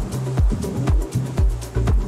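Progressive house music from a DJ mix: a four-on-the-floor kick drum about twice a second, a bass line filling the gaps between the kicks, and hi-hats ticking above.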